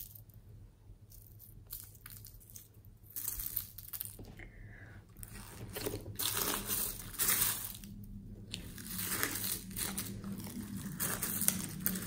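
Crunching and crackling of small plastic beads and sequins as hands press and knead them into slime. The crackle is sparse at first and grows louder and busier about halfway through.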